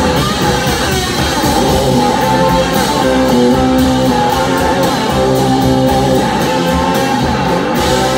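Live rock band playing: electric guitars, horns and drums with steady cymbal strikes, the cymbals stopping just before the end.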